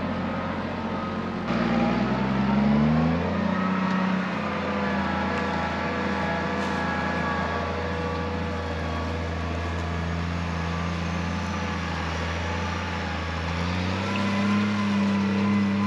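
Case IH MX270 tractor's diesel engine working under load while pulling a deep ripper. About a second and a half in the sound changes abruptly; the engine then revs up over the next two seconds and settles into a steady pull. It rises in pitch again near the end.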